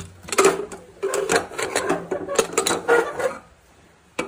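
Aluminium pressure cooker lid being worked open and lifted off after the pressure has been let down: metal scraping and rubbing against the pot rim with clinks for about three seconds, then one sharp clink near the end.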